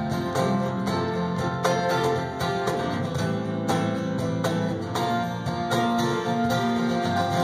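Live worship band playing an instrumental passage without singing, led by an acoustic guitar strumming a steady rhythm.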